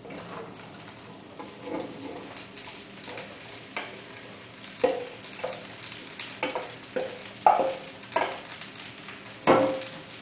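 Sliced onions sizzling in melted butter in a frying pan, with repeated knocks and scrapes as they are tipped in from a glass bowl and stirred with a wooden spoon. The knocks come every half second or so in the second half, the loudest about a second before the end.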